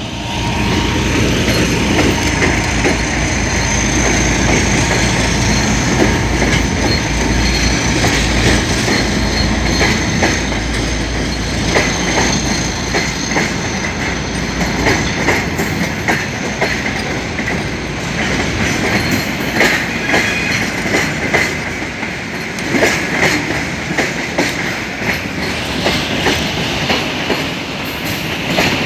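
2M62U twin-section diesel locomotive going past with its two-stroke diesels running, followed by a freight train's wagons clattering over the rail joints. The deep engine rumble dominates for about the first ten seconds, then gives way to a long run of rhythmic wheel clicks with some wheel squeal.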